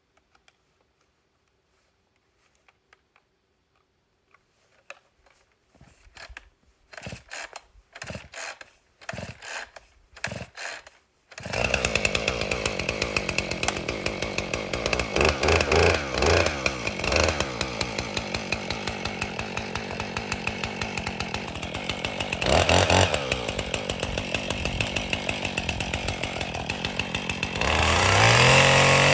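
Husqvarna two-stroke chainsaw being pull-started: a few faint clicks, then a run of short sputtering pulls until the engine catches a little over ten seconds in and runs at idle, with a brief rev partway through. Near the end it revs up to full throttle as the chain goes into the base of a tree.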